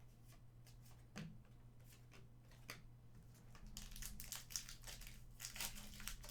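Trading cards and a plastic card-pack wrapper being handled: a few faint clicks of cards, then from about three and a half seconds in a steadier crinkling as the wrapper is worked.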